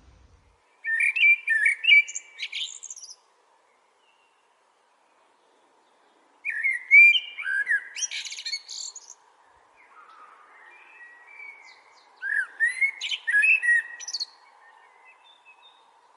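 A songbird singing the same quick, warbling phrase of varied whistled notes three times, each lasting two to three seconds, with pauses of a few seconds between.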